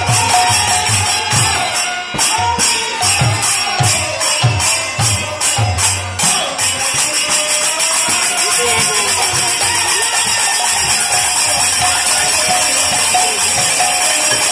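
Kirtan accompaniment: brass hand cymbals (kartals) struck in a steady beat of about two or three strokes a second over a two-headed hand drum. After about six and a half seconds the cymbals quicken into a continuous rapid jingle and the drum hits fade.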